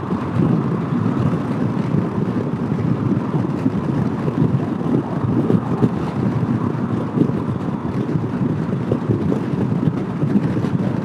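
Steady low rumble of wind buffeting the microphone on a scooter riding at highway speed, mixed with road and traffic noise.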